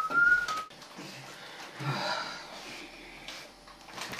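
A person whistling a few wavering notes that break off under a second in, then quieter indistinct sounds.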